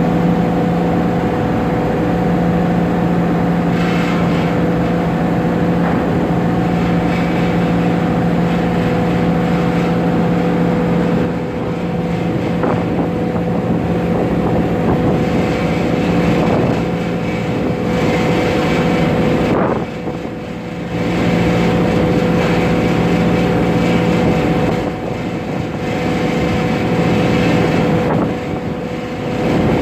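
Ferry's engines droning steadily with a constant hum, wind buffeting the microphone, the level dipping briefly a few times.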